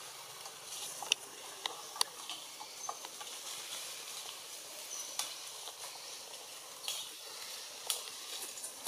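Leaves and twigs crackling and rustling as branches are moved: scattered sharp clicks over a steady high hiss, with two very short, faint high chirps.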